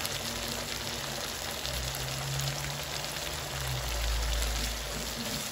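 A pan of onion, garlic, pepper and tomato sauce sizzling steadily on the hob, with a low rumble swelling about four seconds in.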